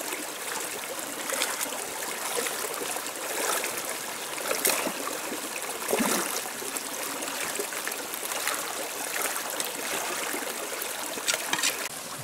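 Shallow rocky stream running, with several splashes and sloshes as hands and bare feet move in the water, the loudest about six seconds in.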